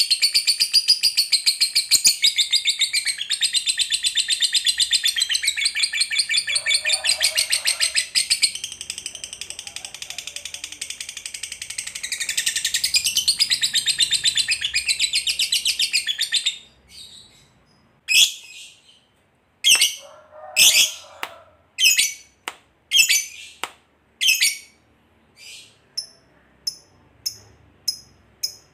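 Fischer's lovebird giving a long 'ngekek' chatter, the extended trill prized in fighter lovebirds: a rapid, unbroken stream of shrill notes for about the first sixteen seconds. It then breaks off into single sharp calls about once a second, with quicker short chips near the end.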